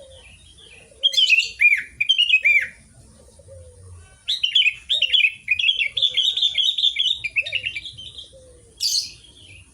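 Sooty-headed bulbul singing. Two short phrases of quick arched whistled notes start about a second in, then a longer run of rapid notes follows, and a brief last phrase comes near the end.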